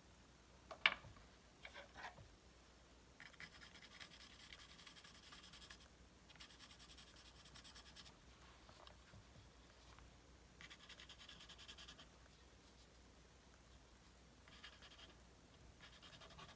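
Pastel pencil scratching over black drawing paper in several faint runs of strokes, each lasting one to two seconds, with a sharp tap about a second in.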